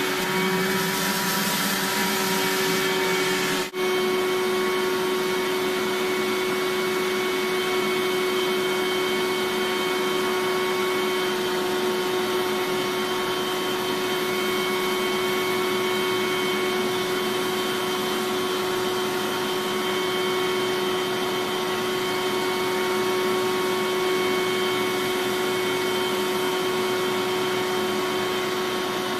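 Eureka Mighty Mite 3112A canister vacuum cleaner running steadily, a rushing airflow with a constant motor hum and a high whine. The sound drops out for an instant about four seconds in.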